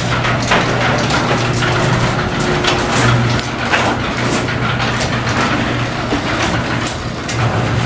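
Electric garage door opener raising the door: a steady motor hum with the clicking and rattling of the door panels and rollers running along the track, cutting off near the end.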